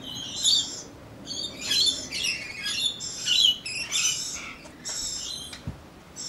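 A flock of small parrots calling with repeated harsh, high screeches, overlapping one another.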